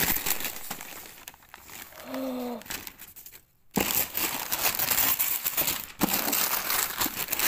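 Gift wrapping paper being torn and crumpled as a large present is unwrapped. The rustling comes in two spells with a short pause between them.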